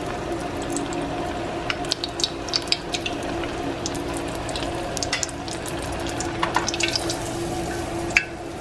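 Deep-frying oil bubbling and crackling hard around a breaded mozzarella stick in a steel pot, with many sharp pops throughout. The oil is too hot, as the cook judges. A steady low hum runs underneath.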